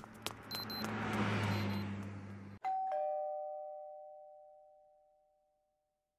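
Title-sequence sound effects: a swelling whoosh over a low hum that cuts off sharply about two and a half seconds in, followed by a two-note ding-dong chime, high then low, that rings out and fades away.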